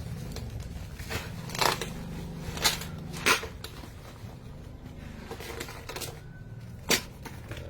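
A parcel being handled and unpacked: rustling and scraping of packaging, with four short, sharp noises spread through it.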